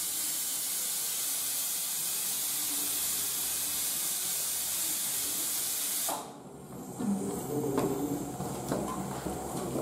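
A steady hiss that cuts off suddenly about six seconds in, followed by quieter kitchen handling sounds with small clicks.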